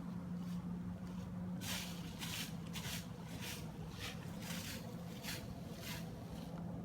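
Whitetail buck's snort-wheeze: a run of short, hissing bursts of air forced through the nose, about two a second. A steady low hum runs underneath.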